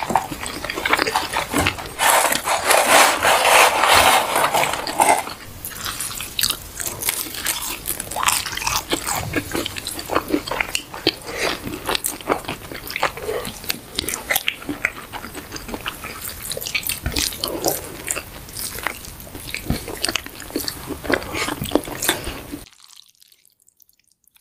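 Close-miked eating: biting and chewing with many sharp crunches. It stops abruptly shortly before the end.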